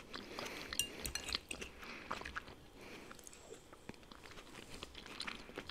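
Close-miked chewing of food, a scatter of small mouth clicks, quieter for a moment in the middle.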